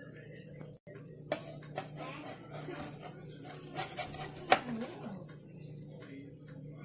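A spatula scraping and tapping against the ridged nonstick plate of a George Foreman grill as it is worked under a grilled cheese sandwich and lifts it. There are a few light clicks, the sharpest about four and a half seconds in.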